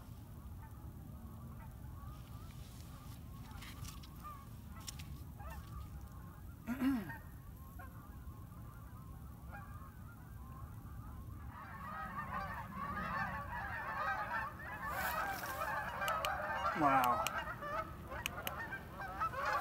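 A flock of geese honking in flight, faint and scattered at first, then swelling in the last third into many overlapping calls as it passes over.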